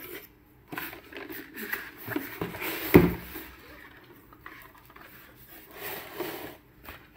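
Cardboard product box being handled and its lid lifted open: rustling and scraping of cardboard, with one sharp knock about three seconds in.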